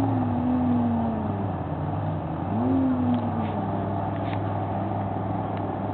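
Racing boat engine running out on the lake, a steady drone with two brief swells in pitch, one at the start and one about two and a half seconds in.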